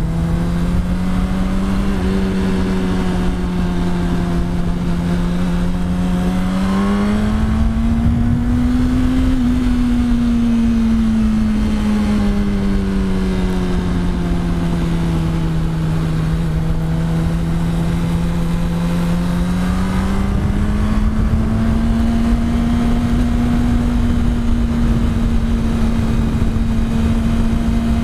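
Yamaha R1 inline-four engine running at a steady throttle, with a heavy low rush of wind noise underneath. Its pitch climbs slowly and eases back down, then climbs again about two-thirds of the way in and holds there.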